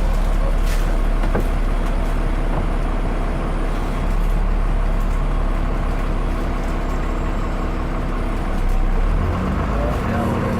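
Dennis Enviro 400 double-decker bus's diesel engine running under way, with its turbocharger whistling. The engine note changes about nine seconds in.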